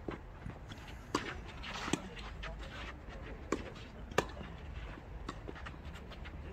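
Tennis balls struck by rackets and bouncing on the court during a doubles rally: a string of sharp pops, spaced irregularly about a second apart.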